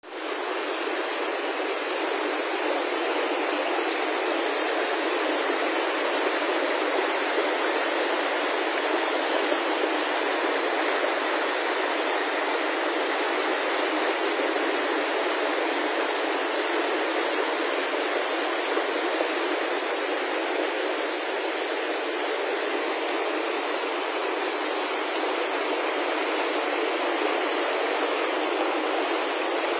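Shallow rocky stream rushing and splashing over stones in a steady, unbroken rush of water.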